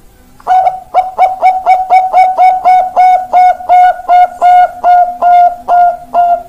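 Perkutut Bangkok zebra dove cooing a long, fast run of short, evenly spaced coo notes, about three a second, starting about half a second in.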